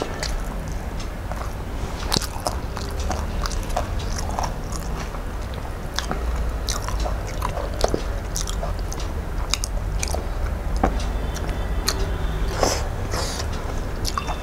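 Close-miked chewing and mouth sounds of a man eating rice and spinach saag by hand, with frequent sharp, irregular smacking clicks over a steady low hum.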